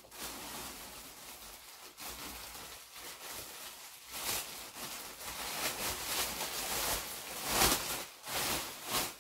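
Rustling of clothes and packaging being handled and moved about, coming and going in uneven bursts, loudest about three-quarters of the way through.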